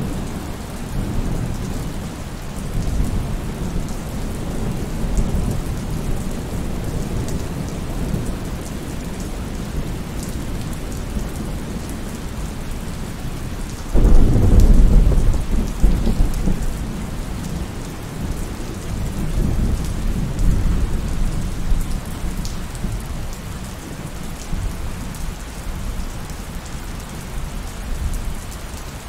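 Steady rain with rolling thunder. About halfway through a loud thunderclap breaks in and rumbles away over a couple of seconds, and more rumbles follow a few seconds later.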